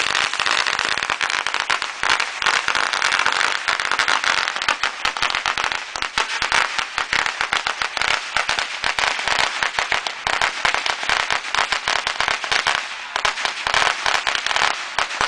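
Firecrackers going off in a rapid, continuous crackle of sharp pops, thinning out near the end.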